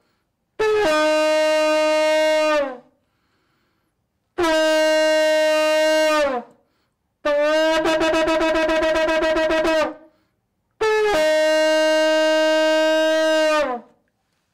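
Shofar blown in four long blasts with pauses between them. Each blast holds a steady note and slides down in pitch as it dies away, and the third wavers rapidly throughout.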